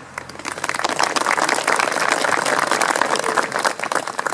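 A crowd applauding: the clapping builds up about half a second in, holds dense and steady, then thins out near the end.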